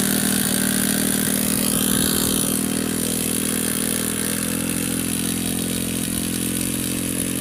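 Small single-cylinder motorcycle engine from a scrapped TVS bike, running steadily as it powers a homemade walk-behind mini tractor working dry soil.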